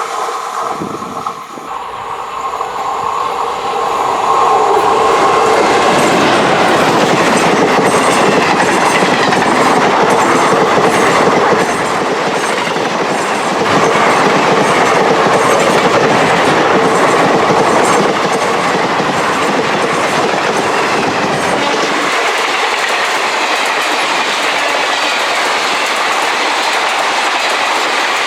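Two express passenger trains, hauled by WAP4 electric locomotives, passing each other at speed: a long, steady rush of wheels on rail. It builds over the first few seconds and eases off somewhat in the last third.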